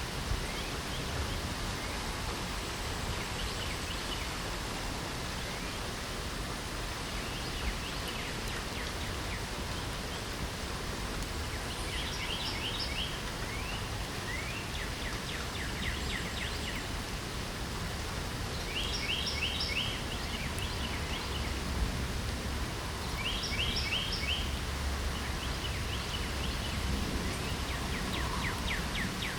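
Steady rain falling, with songbirds singing short phrases of quick repeated high notes every few seconds, mostly in the second half.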